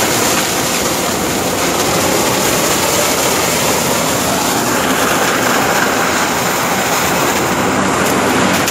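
Sugarcane harvester working close by, chopping cane and sending it up its elevator into a trailer. The machine noise is loud and steady.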